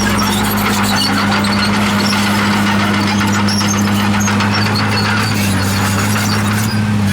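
Komatsu D51PX bulldozer's diesel engine running at a steady speed, with scattered short high squeaks.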